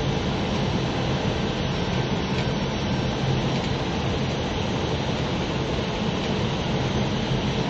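Steady cockpit noise of an Airbus airliner on short final: the rush of airflow around the flight deck mixed with the engines' low hum, even and unchanging.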